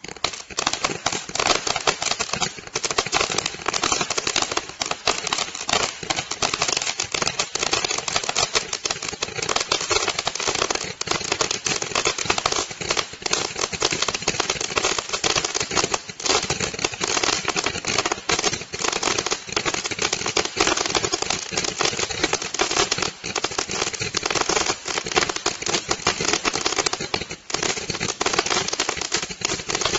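A 660-shot, 3.3-inch-by-33-inch Roman candle firing a rapid, unbroken stream of shots that starts abruptly and keeps going without a pause.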